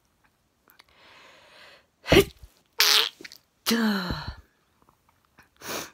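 A woman's sneezing fit: a long breathy in-breath about a second in, then a rapid run of loud sneezes starting a little after two seconds in, one trailing into a voiced cry that falls in pitch, and a last short sneeze near the end.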